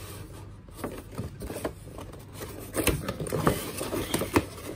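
Hands handling and opening a cardboard toy box with a clear plastic window: irregular scrapes and clicks of cardboard and plastic, more frequent in the second half.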